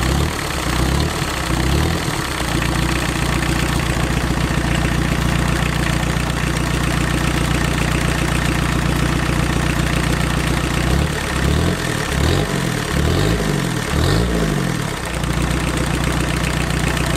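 Opel Astra 1.7 turbodiesel engine (an Isuzu-built unit with intercooler), out of the car, running at idle on a test run after a year in storage. It is revved up and down a couple of times near the start and several times again about two-thirds through.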